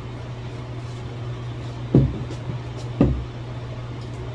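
Two dull thumps about a second apart, the second near the middle of the stretch, over a steady low hum.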